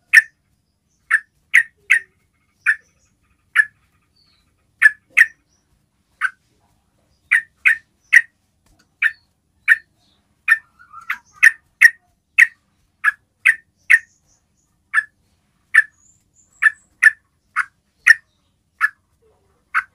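Yellow-vented bulbul giving short, sharp single call notes over and over, about one to two a second at an irregular pace, the trucukan's basic call.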